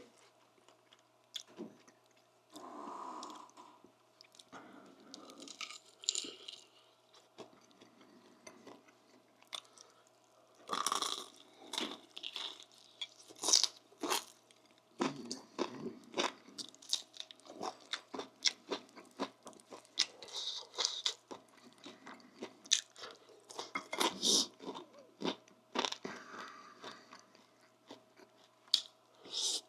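A person eating crunchy food close to the microphone: irregular crisp crunches and chewing, sparse at first and coming thick and fast from about a third of the way in.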